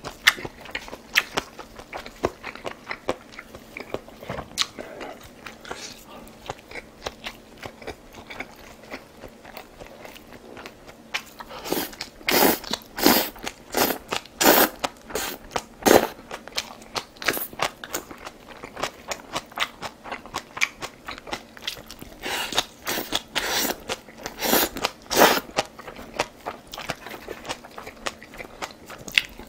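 A person eating: soft chewing clicks, then two runs of loud crunchy bites and chewing, about 12 seconds in and again about 22 seconds in.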